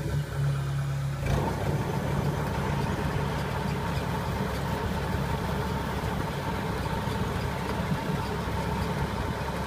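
Kubota DC-70 combine harvester running steadily, its diesel engine and threshing works going together; the sound grows fuller about a second in and then holds steady.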